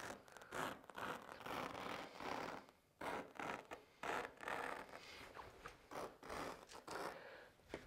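Carpet cutter blade slicing through carpet along a marked line, a faint rasping cut in uneven short strokes with a brief pause about three seconds in.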